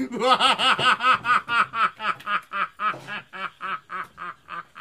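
A long, theatrical villain's laugh, 'ha-ha-ha' about five times a second, slowing and getting quieter toward the end.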